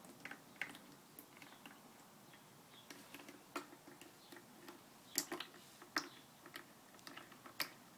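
Faint, irregular ticks and light taps, the loudest three in the second half, as engine oil drips from the drain of a Coleman 5 hp outboard into a funnel.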